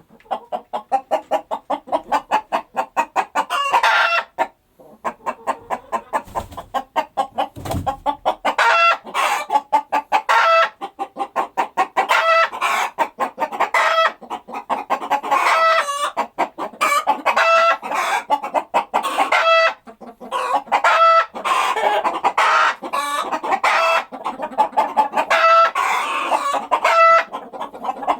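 Chickens clucking without pause: rapid short clucks overlapping, with louder, longer pitched calls about every second.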